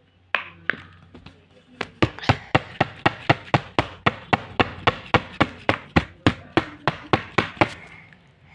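A clear plastic bottle with pink contents being shaken hard, giving a few loose knocks and then a steady run of sharp clacks, about four a second, that stops near the end.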